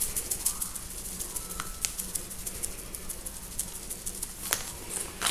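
Ground black pepper being shaken from a pepper shaker: faint quick rattling and ticking, with a sharper click near the end.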